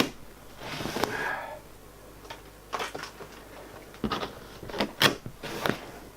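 Cardboard box and its packaging being handled: a sharp knock at the start, a short rustling scrape about a second in, then scattered taps and knocks.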